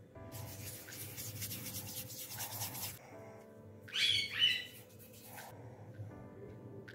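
Hands rolling small pieces of floured pizza dough into balls: a soft rubbing hiss for about three seconds, over quiet background music. A short, high squeak-like call comes about four seconds in.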